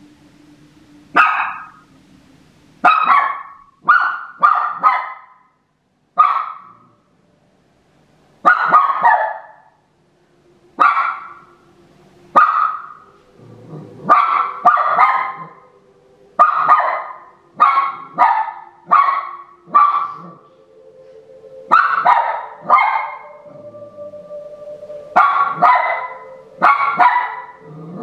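Dog barking repeatedly at cats on a laptop screen: about twenty sharp barks, some single and some in quick pairs, one to two seconds apart.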